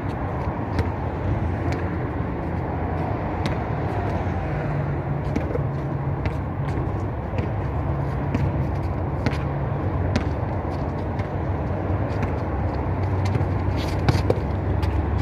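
A basketball bouncing on a concrete court, with players' footsteps: irregular sharp knocks over a steady low rumble.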